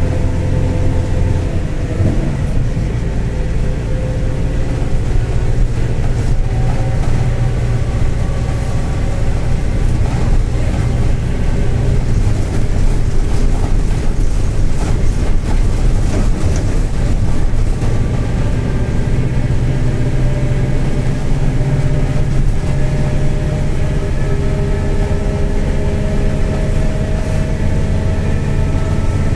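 Mercedes-Benz OF-1721 BlueTec 5 bus's four-cylinder diesel engine running steadily, with a growling bearing. The engine note climbs slowly in pitch over the last ten seconds or so.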